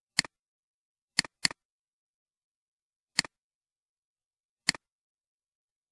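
Computer mouse clicks: five sharp clicks, each a quick press and release, two of them in quick succession about a second in, with dead silence between.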